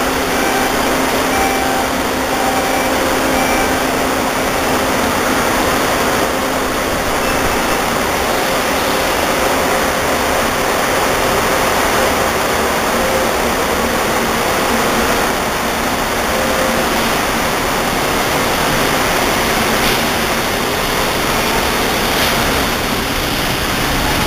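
Steady, loud rushing hiss of a Kuala Lumpur monorail train standing at the platform and pulling out, with a few short beeps in the first few seconds.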